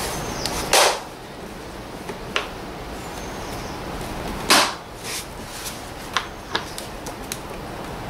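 Plastic clips on a Volvo V70's air filter box lid snapping shut as the lid is clipped back on. Two sharp clicks come about four seconds apart, with a weaker click between them and a few small ticks near the end.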